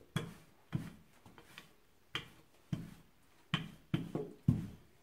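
Wooden rolling pin rolling out pizza dough on a countertop, a short soft knock at each stroke at uneven intervals.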